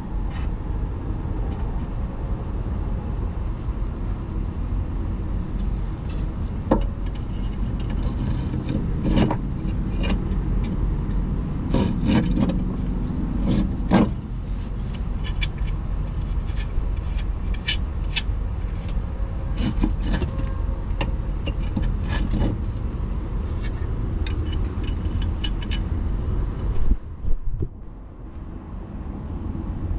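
Scattered metallic clinks and knocks of hand tools and hardware while a replacement air spring is fitted to a truck's drive axle, over a steady low rumble.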